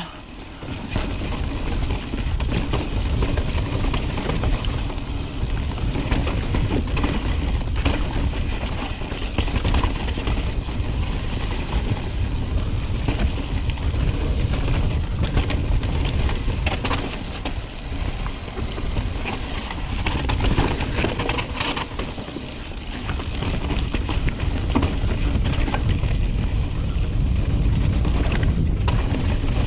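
2018 Intense Carbine 29er mountain bike riding down a rocky trail: a steady low rumble of wind and tyres on the camera microphone, with frequent clicks and knocks as the bike rattles over rocks.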